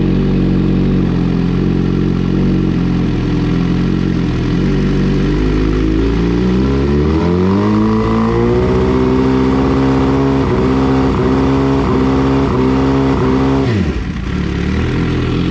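2014 Suzuki GSX-R 750 inline-four engine idling, then revved up over a few seconds and held at higher revs with a slight regular stutter. Near the end it drops quickly back to idle.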